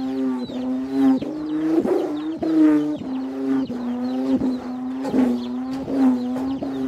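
Cambodian ek, the bamboo-and-ribbon hummer bow of a khleng ek kite, whirled around on a cord and droning a loud, steady buzzing hum. The pitch dips with a short rasp on each swing, roughly one and a half to two times a second.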